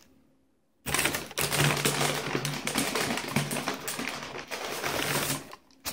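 Paper food wrapping and bag rustling and crinkling in a dense run of quick crackles, as a wrapped griller is handled and unwrapped. It starts about a second in and stops just before the end.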